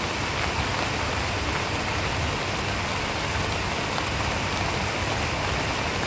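Steady rain falling on garden plants and wet ground, an even unbroken hiss.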